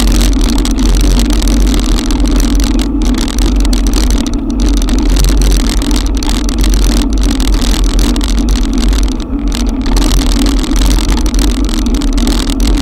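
Loud, steady rushing noise of riding an electric bike through a heavy downpour: rain and wind on the camera's microphone over a constant low drone.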